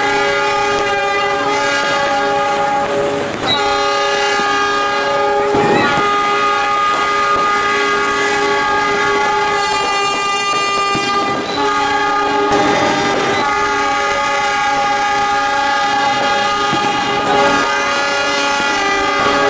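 Diesel locomotive air horns sounding long, held multi-note chords for the New Year horn concert, nearly without pause. The chord breaks off and restarts a few times.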